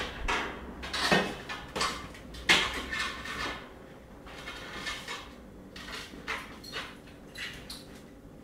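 Knocks and clatters of a metal bed frame and household clutter being shifted about, sharpest in the first few seconds and then lighter and scattered.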